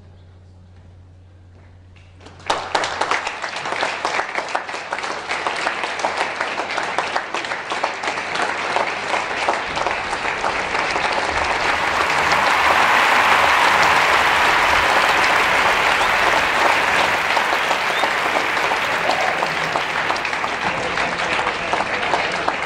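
Audience applauding: after a quiet moment with a low hum, the clapping breaks out suddenly about two seconds in and swells to its loudest around the middle, easing slightly near the end.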